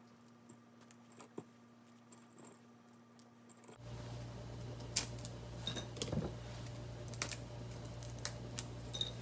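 Dried baby sardines (niboshi) being pinched apart by hand: faint dry crackles and scattered small clicks as heads and innards are snapped off and dropped onto a ceramic plate. A low steady hum comes in about four seconds in.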